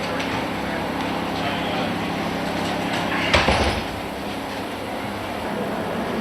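Steady mechanical hum of pit-area background noise, with one loud knock a little over three seconds in.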